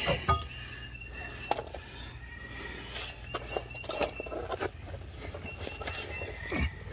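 Scattered light metal clicks and scrapes of pliers working at the rusted sheet metal of a leaf-spring hanger pocket, with a few sharper knocks about a second and a half in, around four seconds in, and near the end.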